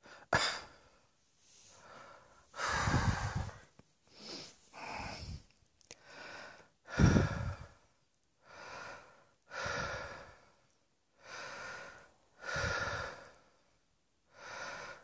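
A person breathing heavily, roughly one breath a second, with two louder, throatier breaths about three and seven seconds in.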